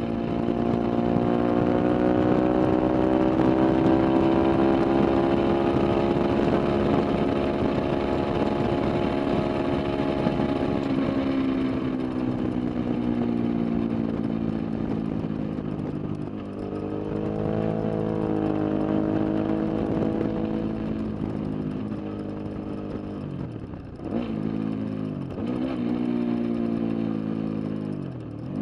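Sport motorcycle engine running at high revs on a race track, held nearly steady for about ten seconds, then easing off and climbing again. Near the end the pitch drops sharply and climbs back several times as it changes gear.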